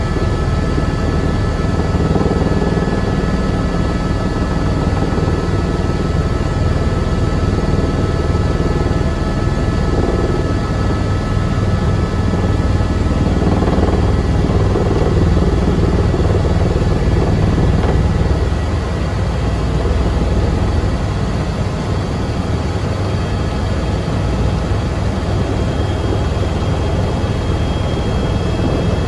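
Helicopter turbine engine and rotor running, heard from inside the cockpit: a loud, steady rumble with a thin, steady whine above it during the descent to a low hover.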